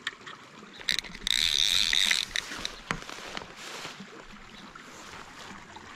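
Splashing water in a small creek while a hooked brown trout is played. A burst of splashing starts about a second in and lasts about a second, followed by a few light knocks and a shorter splash.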